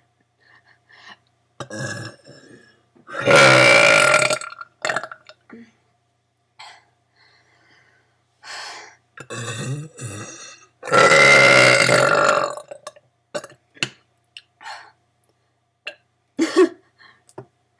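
A girl burping: two long, loud belches about three and eleven seconds in, with shorter, quieter burps around them.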